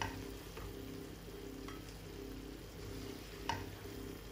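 Food sizzling in a frying pan while being stirred, with a utensil knocking against the pan a few times; the loudest knock comes about three and a half seconds in.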